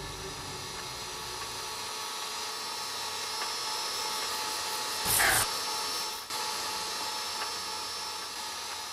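A steady droning soundtrack texture of many held tones over a hiss. About five seconds in there is a short, loud burst of noise, and a second later the sound drops out for a moment before going on.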